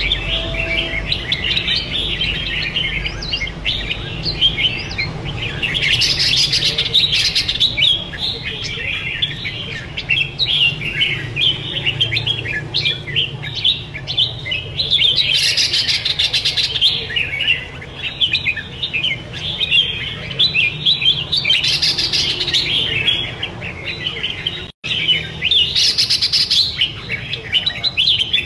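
Two caged red-whiskered bulbuls singing hard against each other: a continuous run of quick, high chirping phrases, with several louder outbursts.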